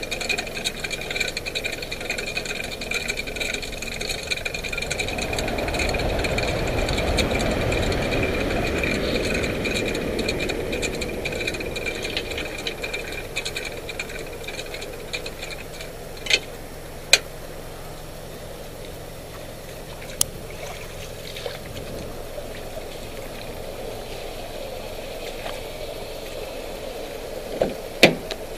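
Boat trailer's hand winch ratchet clicking rapidly as its strap is pulled off the spool, over the tow vehicle's engine idling. A few sharp knocks follow later, the loudest near the end.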